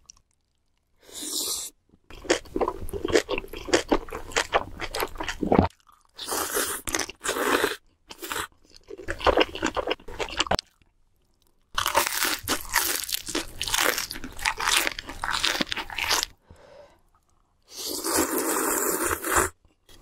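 Close-miked eating: crunching bites and wet chewing, in several bursts of a few seconds each, broken by sudden silent gaps.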